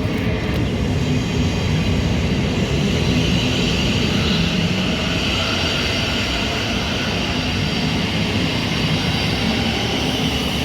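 Thameslink Class 700 electric multiple unit running along the platform, a steady loud rumble of wheels on rail with a higher hissing whine that strengthens about three seconds in.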